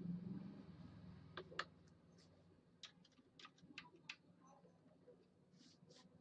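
Near silence: faint room hum with about a dozen light, scattered clicks.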